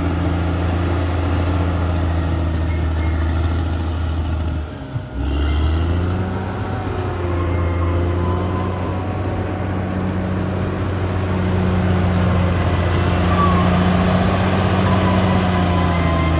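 Caterpillar D6R XL bulldozer's diesel engine running steadily, with a brief dip about five seconds in before it picks up again.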